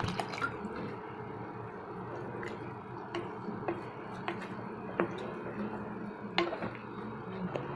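A spatula stirring a watery mix of millet, lentils and vegetables in a metal pot: soft wet squishing with scattered sharp clicks as the spatula knocks the pot, over a steady low hum.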